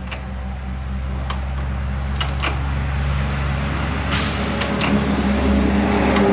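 The hand crank of a 1914 Model T Ford's four-cylinder engine being pulled through with the ignition off and the choke out, priming the cold engine: a few clicks and a short rush of air as the crank turns the engine over. A steady low hum runs underneath.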